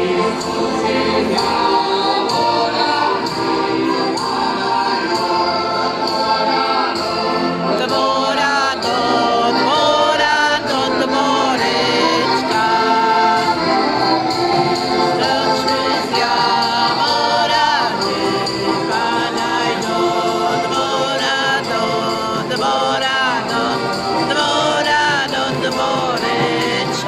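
Several heligonkas (diatonic button accordions) playing a folk tune together, with the players singing along as a male chorus.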